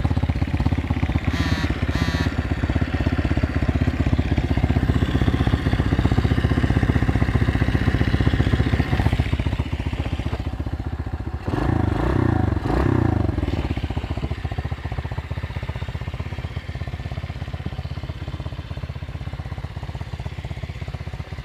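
125cc pit bike's single-cylinder four-stroke engine running steadily after winter storage. About twelve seconds in it surges briefly, louder and rougher, then settles back to a slightly quieter run.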